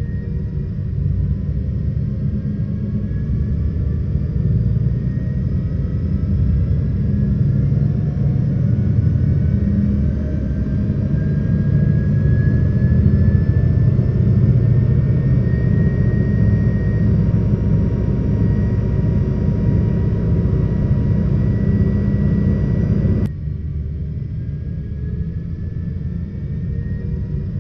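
Jet aircraft engine sound effect: a steady low rumble with faint whines slowly gliding in pitch, dropping abruptly to a quieter level about 23 seconds in.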